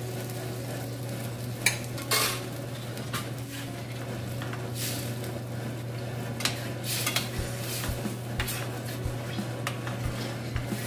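Spatula stirring and scraping in a stainless steel frying pan of tomato-oil sauce with ground crayfish, in short irregular strokes, with two sharp knocks about two seconds in. A steady low hum runs underneath.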